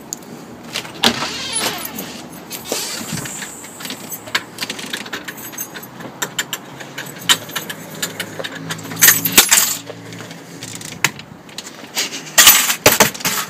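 Keys jangling and scraping against a door lock in irregular clicks, with a louder flurry of clicks about nine seconds in: someone fumbling to get the key into the lock. A faint low hum runs underneath.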